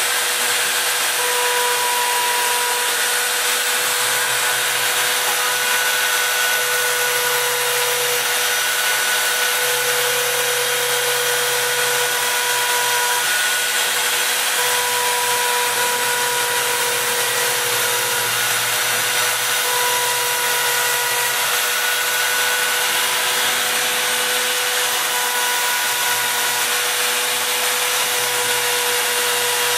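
Home-built CNC router running a cut: the spindle and bit make a steady high whine and hiss as they rout along the part outlines in the sheet. Under it, steady tones cut in and out and change pitch every second or two as the machine moves between directions.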